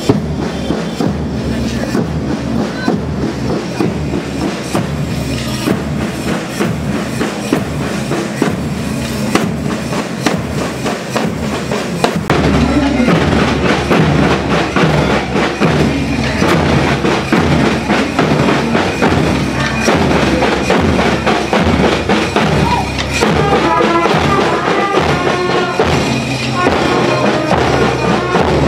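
School marching band playing a march, drums beating a steady rhythm with brass instruments such as euphonium and trumpets. It gets louder about twelve seconds in.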